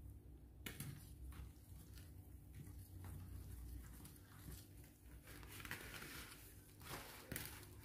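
Faint, irregular scraping and soft knocks of a wooden-handled bread whisk working flour and milk mixture into a stiff dough in a glass bowl.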